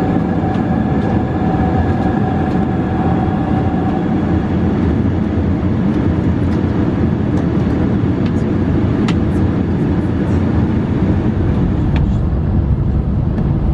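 Boeing 767-300 cabin noise on approach: a steady heavy rumble of engines and airflow. A faint steady whine fades out in the first few seconds, and a few faint ticks come through.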